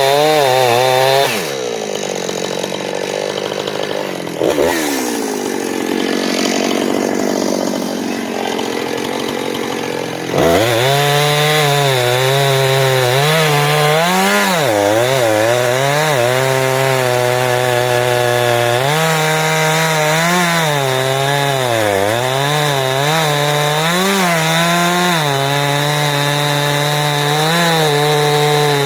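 Two-stroke chainsaw at full throttle that drops to a lower speed about a second in, then revs back up about ten seconds in and cuts wood, its pitch dipping again and again as the chain loads up in the cut.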